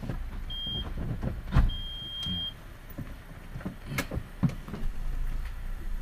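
Engine of a Daihatsu Sigra running at low revs, heard from inside the cabin. Two short, high electronic beeps sound in the first half, the second longer than the first, and a few sharp knocks and clicks follow.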